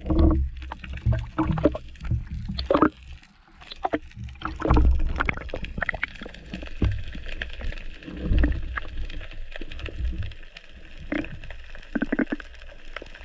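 Seawater sloshing and gurgling around a camera as it dips in and out of the surface, with irregular knocks and splashes and swells of muffled underwater noise.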